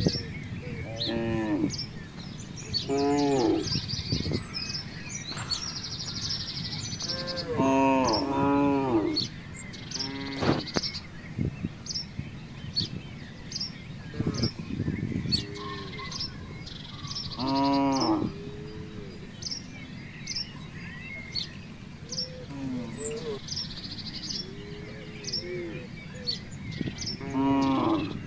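Cattle mooing in short, repeated calls, several in quick succession about eight seconds in, while small birds chirp.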